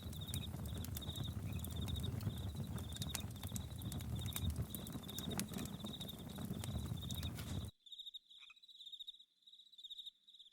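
Campfire crackling, a low rumble of flames with scattered sharp pops, under crickets chirping in a steady pulsing rhythm. About three-quarters of the way through, the fire sound cuts off suddenly, leaving only the crickets and one short falling call.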